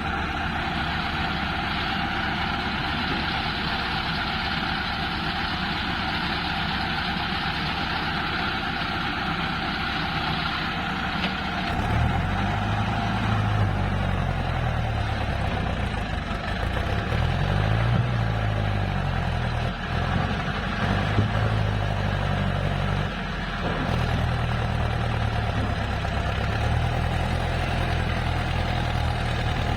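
Heavy diesel engine running steadily, then from about twelve seconds in its pitch rising and falling as it works under load, before settling again near the end.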